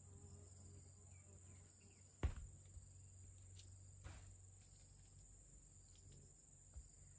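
A single sharp knock about two seconds in, as a long wooden plank is picked up and handled, with a softer scrape of the board a couple of seconds later. Faint steady insect trilling runs underneath.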